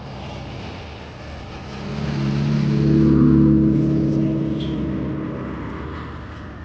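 A motor vehicle passing close by. Its engine hum swells to a peak about three seconds in and then fades, over steady road noise.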